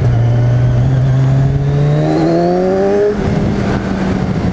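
Kawasaki Z1000's inline-four engine pulling under acceleration, its note rising steadily in pitch; about three seconds in the rise breaks off and the note levels out.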